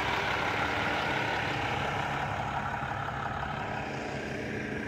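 Vehicle engine idling steadily with a low hum, slowly growing quieter.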